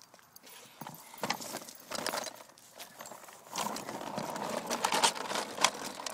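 Plastic baby walker rolling over pavement: its wheels and frame clatter, and the toys on its tray rattle. Irregular clicks at first, then a steadier rattling from a little past halfway.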